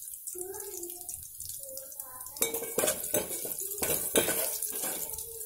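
Steel ladle stirring a tempering of garlic, dried red chillies and dals in hot oil in an aluminium pot. From about two seconds in it clinks and scrapes against the pot's metal sides several times.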